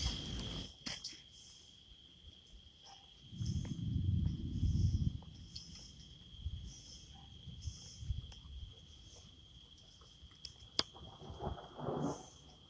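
Insects calling outdoors: a steady high-pitched trill with softer chirps repeating about once a second. A low rumble swells about three and a half seconds in, lasting over a second, and there are scattered light clicks.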